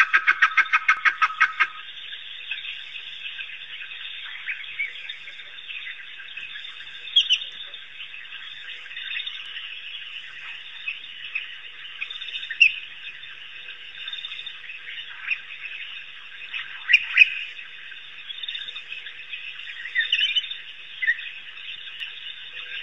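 A loud, rapid, regular pulsing stops about two seconds in. After it, African wild dogs twitter: short, high, bird-like chirps come and go over a steady hiss.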